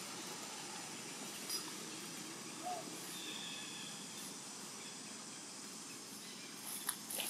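Steady outdoor background hiss, with a few faint clicks and a brief faint chirp partway through, and sharper clicks near the end.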